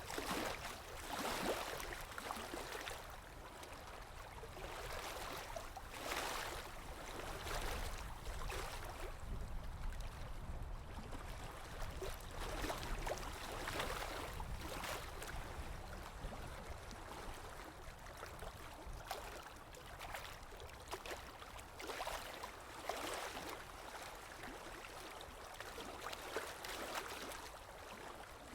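Sea waves washing in, a steady hiss that swells into a louder rush every several seconds and then ebbs, over a low rumble.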